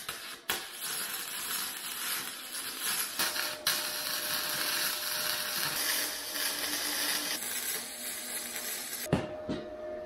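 Electric arc welding on the steel tube frame: the arc gives a steady crackling, frying hiss, with a short break about three and a half seconds in. The hiss stops about nine seconds in and a steady hum follows.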